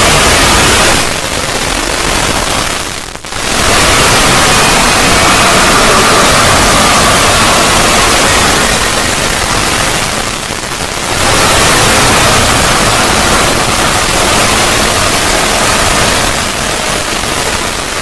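Heavily distorted 'void' logo sound effect: a loud wall of harsh, static-like noise covering every pitch, with a faint wavering tone buried in it. It dips briefly three times, most sharply about three seconds in.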